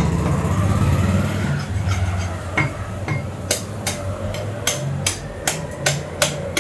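Steady low hum under the whole stretch; from about halfway, a meat cleaver chopping on a wooden block in quick regular knocks, about three a second.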